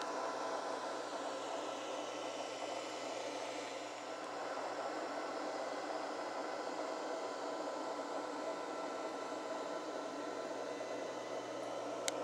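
Steady fan-like whirring hiss with a faint hum, from the reef aquarium's running equipment such as pumps and cooling fans. A short click near the end.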